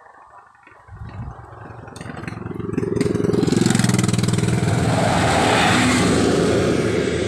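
Coach bus driving past close by: its engine and tyre noise build from about two seconds in, are loudest through the middle, and ease slightly near the end.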